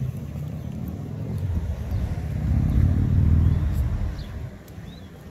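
Outdoor street ambience: a low rumble that swells about two and a half seconds in and fades toward the end, with a couple of faint high chirps near the end.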